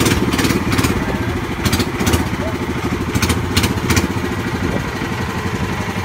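Boat engine running steadily under way, a fast even chugging, with several short hissing bursts of spray or wind over it.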